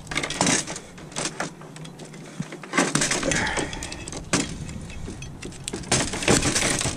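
Irregular clicks, knocks and rattles of small plastic and metal parts and wires from a dismantled oxygen concentrator, handled while being cleaned up for scrap.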